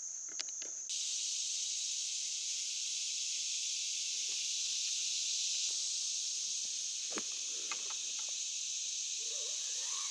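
Steady high-pitched insect chorus droning in summer woods, with a few faint knocks and rustles about seven and eight seconds in.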